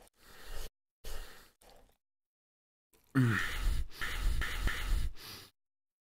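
A man with a mouthful of bread roll breathes out hard twice, then about three seconds in lets out a long sigh, its pitch dropping at the start, with mouth-full noise.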